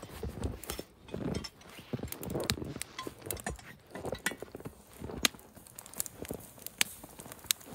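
Footsteps crunching in snow, then sharp metallic clinks as the lid of a cast iron Dutch oven hanging from a tripod chain is gripped and lifted off, a few clinks in the second half.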